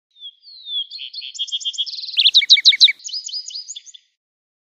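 Lark sparrow singing one song of about four seconds: it opens with falling whistles, runs into a series of trills and buzzes, peaks in the middle with a quick run of loud, sharp notes, and ends in a softer buzzy trill.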